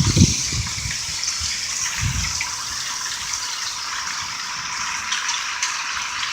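Heavy hail coming down in a steady, dense rush of hailstones, with a couple of low thuds near the start and about two seconds in.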